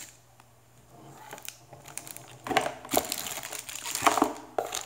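Clear plastic packaging bags crinkling and crackling as bagged cables and a car charger are handled and lifted out of a box. Quiet at first, then crinkling in bursts from about halfway through.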